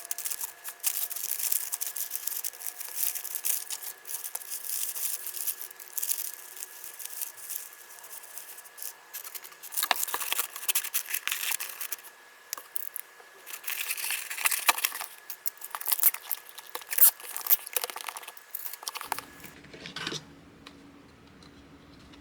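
Packaging materials being handled in an order-packing session: crinkling and rustling with sharp crackles and tearing. The rustling stops about three seconds before the end, leaving a faint low hum.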